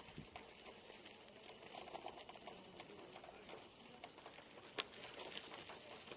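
Faint crackle and patter of an electric unicycle's tyre rolling over a loose dirt and gravel path, with a single sharp click about five seconds in.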